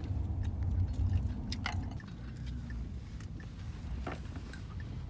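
Steady low rumble of a car cabin on the road, with scattered light clicks of chopsticks against a plastic food container and someone chewing.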